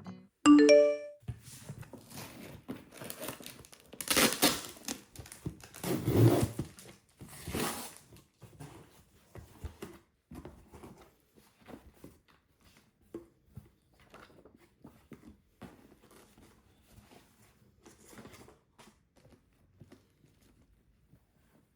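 Packaging being torn and unwrapped by hand: several loud tearing, crinkling rustles a few seconds in, then quieter handling clicks and rustles that fade out.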